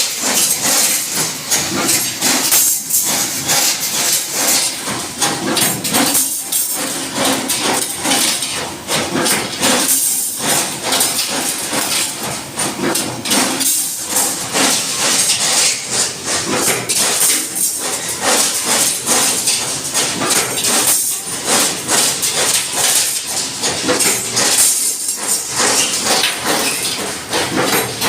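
Prima+ construction machine running, with a dense, fast, irregular clattering of metal knocks over a steady high hiss.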